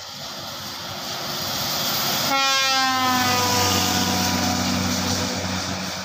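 Passenger coach bus passing at speed on a wet road, its tyre and engine noise swelling as it approaches. About two seconds in it sounds a long multi-tone air horn whose pitch drops as the bus goes by.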